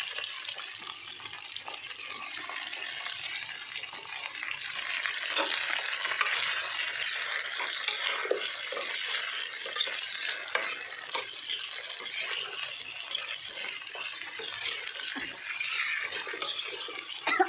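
Cubed eggplant and potato frying in hot oil in a kadhai: a steady sizzle while the vegetables are stirred, with scattered light clicks and scrapes against the pan.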